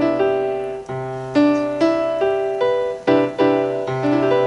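Small electronic keyboard with a piano sound playing E minor 7 over a C bass, a C major 9 sound, in its inversions. Chord tones are struck one after another, about two a second, over a held low note.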